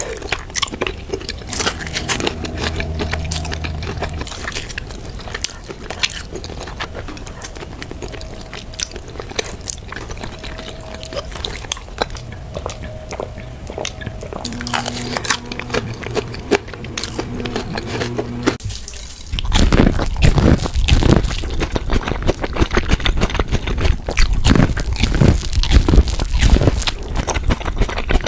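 Close-miked eating of corn: bites and moist, crunchy chewing, quieter and scattered at first, then much louder and denser crunching from about two-thirds of the way in.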